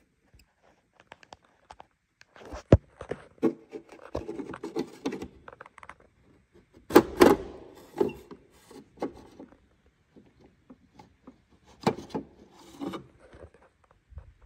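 Irregular plastic clicks, scrapes and knocks as a screwdriver pries at the marker-light lens and plastic housing of a Ford F-350 tow mirror, with the loudest knocks about halfway through and again near the end.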